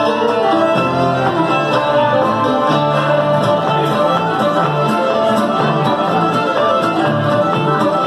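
Old-time string band playing a fiddle tune live: two fiddles carry the melody over a steady strummed guitar backing.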